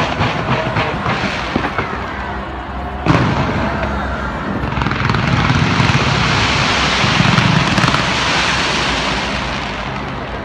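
Aerial fireworks going off: sharp bangs with crackle after them, a loud boom about three seconds in, then a long dense crackling hiss that swells and fades away near the end.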